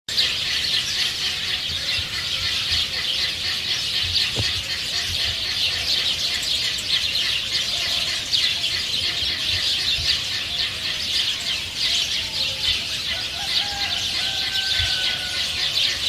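Rural outdoor ambience: a steady, dense chorus of rapid high-pitched chirping, with a few faint, longer lower calls near the end.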